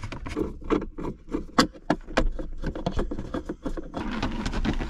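Clicks, taps and rubbing from a screwdriver working out screws and hands shifting the car's plastic center-console trim, with scraping over the last second as the console piece is lifted.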